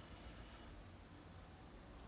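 Near silence: faint room tone with no distinct sound.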